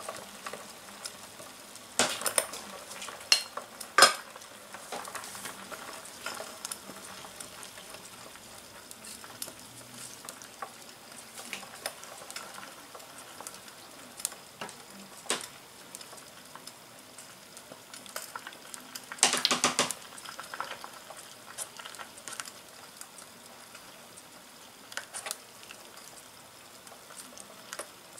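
Soup boiling and sizzling in a small stainless steel pot, a steady faint hiss, broken by sharp metal clinks of the lid and a spoon against the pot; the loudest run of clinks comes about two-thirds of the way in.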